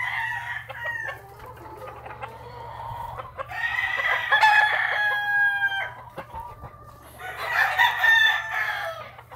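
Gamecock roosters crowing in turn: a crow fading out at the start, a long crow about halfway through, and another near the end.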